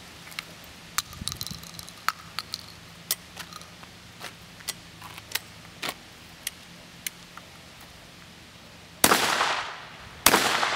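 TOZ 66 12-gauge double-barrelled shotgun fired twice, two loud shots a little over a second apart near the end, each ringing out briefly. Before them, a run of light, sharp clicks and taps.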